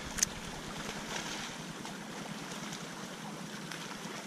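Low, steady lapping of lake water around a plastic kayak hull, with a light rush of wind, and one small click just after the start.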